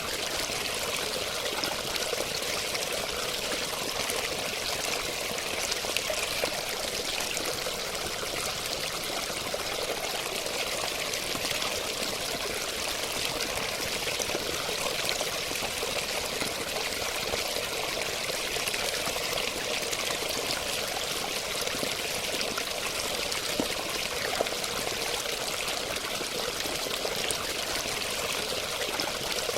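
Running water flowing steadily, a continuous even splashing with no pauses or changes.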